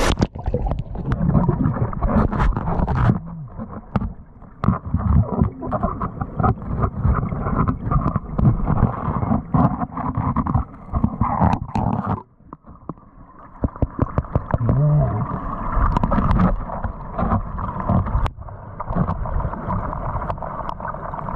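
Heard underwater: muffled rushing creek water with repeated clicks, knocks and scrapes of a metal bar working against bedrock.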